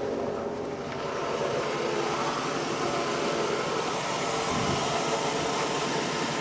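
Chevrolet Suburban's engine idling steadily, heard from inside the cabin.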